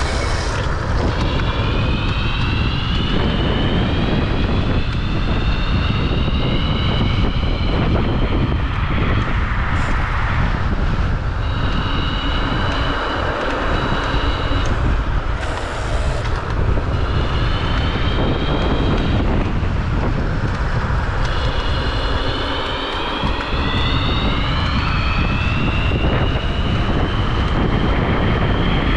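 Electric scooter's motors whining, the pitch rising with each acceleration and breaking off between, several times over. Heavy wind rush on the microphone at speed.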